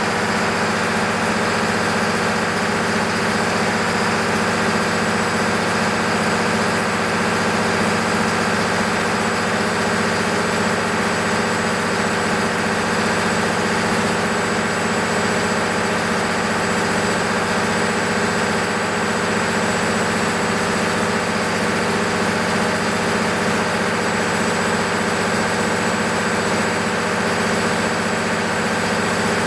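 The freshly overhauled six-cylinder diesel engine of an MEP-006A 60 kW military generator set running steadily, with a constant hum and no change in speed.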